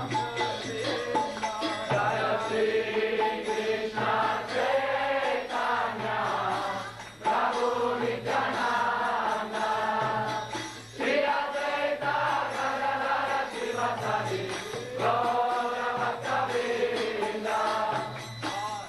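Devotional kirtan: voices chanting a mantra in repeated sung phrases a few seconds long, with short breaks between them, over hand percussion.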